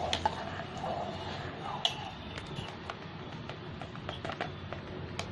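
Steel spoon stirring milk thickened with milk powder in a steel pot, clinking and scraping against the pot's side with irregular knocks.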